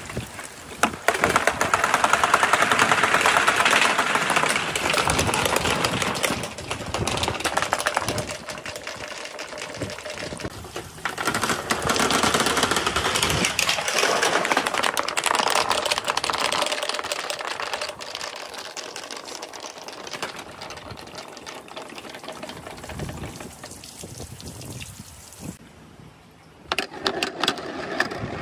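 Many balls rolling and rattling down a marble-run chute and track in a dense, rapid clatter. It comes in two surges that build and die away, and fades out shortly before the end.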